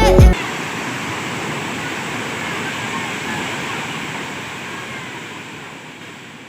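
Waterfall rushing: a steady wash of falling water that slowly fades out over the last few seconds.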